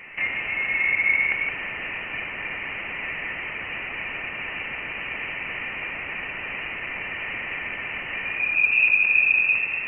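Sonified plasma-wave recording of interstellar plasma from the Voyager 1 spacecraft: a steady radio-like hiss with a thin high tone running through it, which swells about a second in and again near the end. It is spacecraft radio data converted to audible sound, thought to come from interstellar plasma struck by a solar shock wave.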